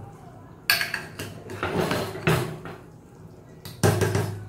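Metal spoon stirring chicken in thick gravy in a pressure cooker, scraping along the pot's inside with a few sharp clanks against its rim: about a second in, halfway through, and the loudest near the end.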